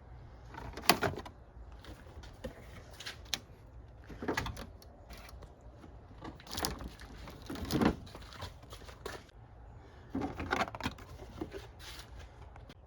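Irregular clicks, knocks and scrapes of hand tools and metal parts being handled, in short clusters over a low steady hum.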